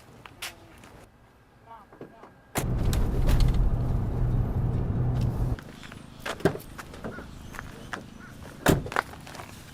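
A vehicle engine running for about three seconds, loud and low, starting and stopping abruptly, followed by a few sharp knocks.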